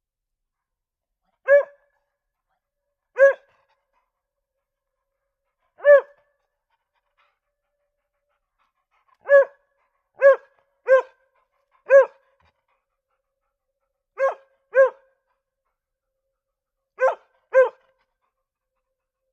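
Mixed-breed dog barking in short, sharp barks, eleven in all: three single barks, then a run of four, then two pairs, with silence in between.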